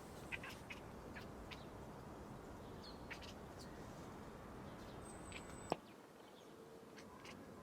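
A cat chirping at prey: short, high chirps in small clusters over a steady hiss, with a single sharp click about six seconds in.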